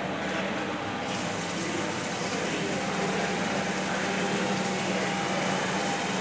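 Two-stage centrifugal pump and its variable-speed motor running with water rushing through the pipework, as the speed is brought up from about 330 to 660 rpm. A hiss comes in about a second in and the sound grows slightly louder.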